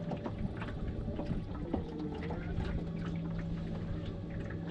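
Water sloshing and lapping against the side of a small fishing boat, with scattered small ticks and a steady low hum underneath.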